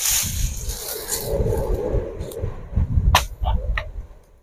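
Dry oil palm fronds rustling and crackling as a long-pole harvesting sickle (egrek) is dragged and pulled through them, with a few sharp snaps about three seconds in.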